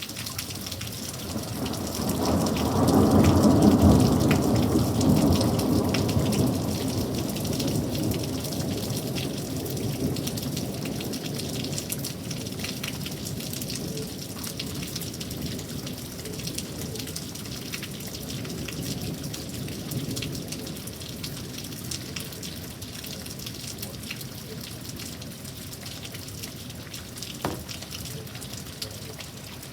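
Heavy rain falling in a steady patter, with a long roll of thunder. The thunder builds about two seconds in, is loudest a second or two later, and rumbles away over the next several seconds.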